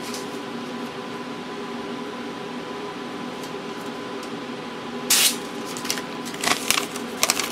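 Oscilloscope's built-in printer paper being torn off with a sharp rip about five seconds in, then crackling and rustling as the printout is handled, over a steady equipment hum.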